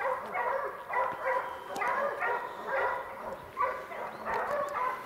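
Hunting hounds barking steadily at a bear, about two barks a second, each bark short and evenly pitched: bear dogs holding the bear at bay.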